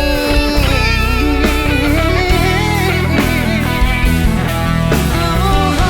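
Rock band playing an instrumental section of a pop-rock ballad, a lead guitar melody with bends and vibrato over bass and drums.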